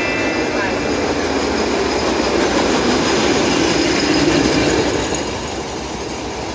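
Passenger train running past, a steady loud rush of wheels on rail that eases a little near the end; a high ringing tone dies away in the first half second.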